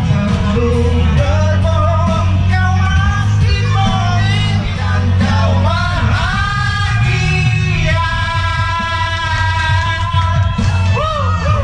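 Men singing loudly through handheld microphones over amplified backing music with a heavy bass. Their voices hold a long sustained note through the middle of the stretch.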